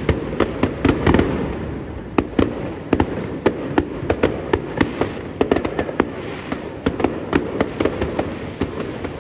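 Fireworks going off in a rapid, irregular series of sharp cracks and bangs, two or three a second, over a steady rushing background.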